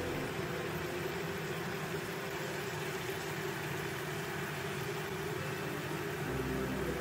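Chicken pieces sizzling steadily as they fry in oil in a frying pan.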